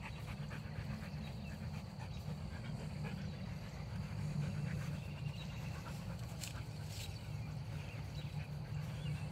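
A husky panting lightly over a steady low rumble, with two brief clicks about two-thirds of the way through.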